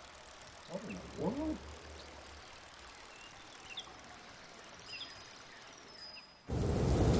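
Quiet outdoor ambience with faint bird chirps and a brief pitched call about a second in, then, near the end, an abrupt cut to a loud steady rushing noise.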